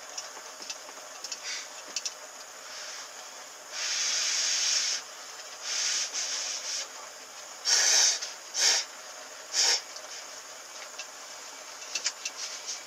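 Cup ramen noodles being slurped: one long slurp about four seconds in, then several shorter ones, over a steady faint hiss. A few light clicks near the end.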